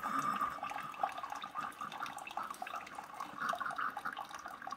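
Mr. Coffee Pod + 10 Cup combo brewer dispensing a thin stream of water from its single-serve spout into a glass mug during a cleansing brew with no pod in, a steady splashing trickle into the water already in the mug.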